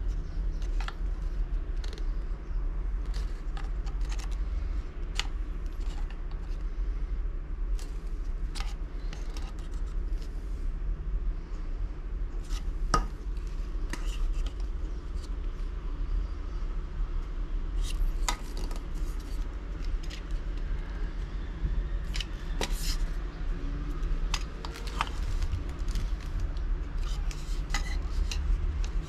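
Scattered light clicks and taps of small objects being handled, with a few sharper knocks, over a steady low rumble.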